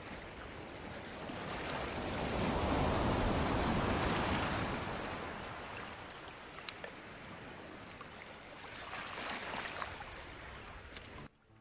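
Ocean surf: the rush of waves breaking, building to a large swell and falling away, then a second, smaller wave near the end before the sound cuts off suddenly.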